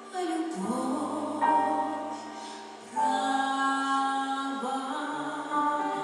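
Slow song: a woman sings held notes into a handheld microphone over sustained accompaniment chords, the notes changing every second or so.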